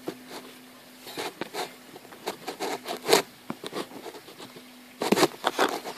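Scratchy rustling and irregular clicks from a handheld tablet or camera being handled close to its microphone, over a faint steady hum. The scraping gets busier and louder near the end.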